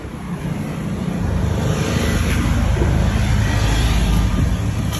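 Motor vehicle engine rumble from nearby road traffic, building up about a second in and then holding steady and loud.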